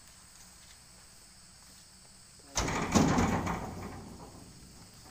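A sudden loud clatter about two and a half seconds in, rattling and fading away over about a second and a half.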